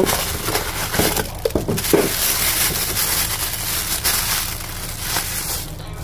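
Cardboard box and packing rustling and scraping as it is handled and opened and a new pump is pulled out of it, with a few sharp crinkles about a second and a half in.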